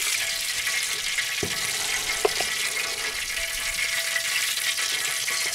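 Steady sizzling hiss of chicken legs and pork hot-smoking on wire grates in a wood-fired smokehouse, with a few light clicks as tongs and a fork handle the meat.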